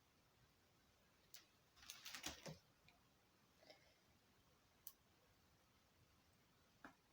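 Faint clicks and light rustling of small objects being handled, with a short cluster about two seconds in and single clicks near five and seven seconds; otherwise near silence.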